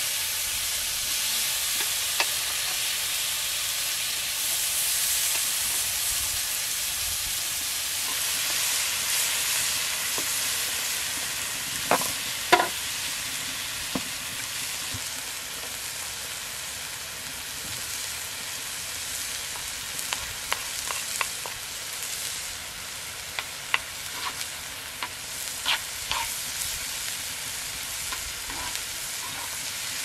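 Diced tomatoes and peppers sizzling in a wide flat iron pan, stirred with a wooden spatula that scrapes and knocks against the pan. The sizzling eases somewhat after the first half, with a few sharp knocks near the middle and several more later on.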